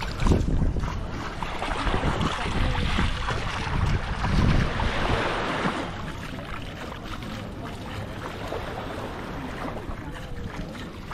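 Wind buffeting the microphone in gusts, strongest at the start and again around four to five seconds in, over a steady wash of small waves lapping at the shoreline; the gusts ease after about six seconds.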